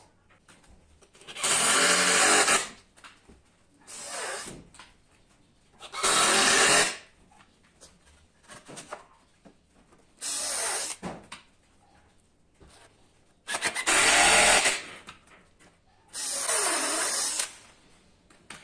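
Power drill running in six short bursts of about a second each, four loud and two softer, with pauses between.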